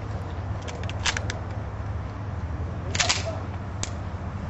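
Sharp metallic clicks of a pistol being handled at the make-ready, with a louder short rasp about three seconds in and a single click shortly after.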